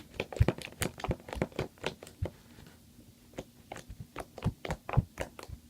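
Stretchy, slightly sticky slime being squeezed and poked, its trapped air bubbles popping in a quick run of sharp little clicks and pops, in two spells with a short pause between.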